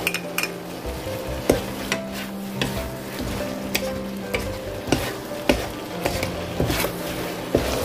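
A spatula stirs and tosses a squid and garlic scape stir-fry in a coated frying pan. It scrapes and knocks sharply against the pan about once a second over a light sizzle.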